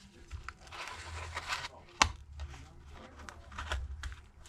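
Thin plastic pry card scraping and crackling as it is worked along the edge of a phone screen's adhesive, with a sharp click about two seconds in.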